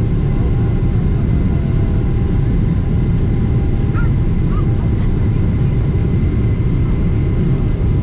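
Boeing 777-300ER jet engine noise: a steady loud low rumble with faint steady whining tones above it. A couple of faint short chirps come about four seconds in.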